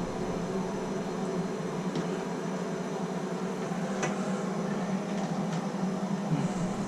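Plumbing torch flame burning with a steady rush, heating a copper fitting on a tub and shower valve so the solder draws into the joint. A couple of faint ticks about two and four seconds in.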